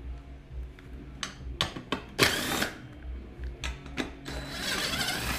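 Cordless power driver spinning a socket to back bolts out of a seat's steel mounting hardware, in a short run about two seconds in and a longer one near the end. Between the runs there are sharp clicks and clinks of metal parts being handled.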